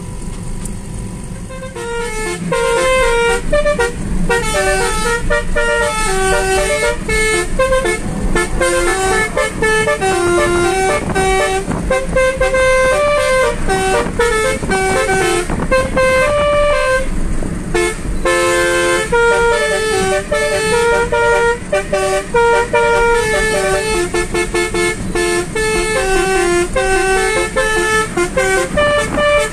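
Basuri musical air horns on the car playing a fast tune note by note, keyed from a small piano keyboard and heard from inside the cabin. The tune starts about two seconds in, over the low hum of the moving car.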